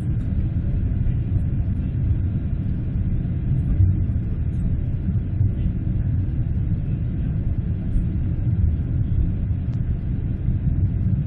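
A low, steady rumble with no clear tone, its loudness wavering slightly.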